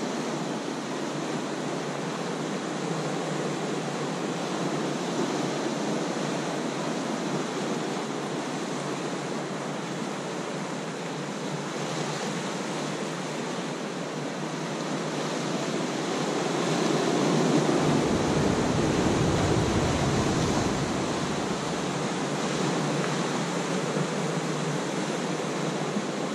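Ocean surf washing steadily over shoreline rocks, a constant rushing that swells louder for a few seconds about two-thirds of the way through.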